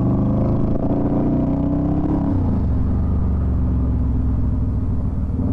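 1996 Yamaha Virago XV250's V-twin engine under way, rising in pitch as it pulls for about two seconds. It then drops sharply and runs steadily at a lower pitch.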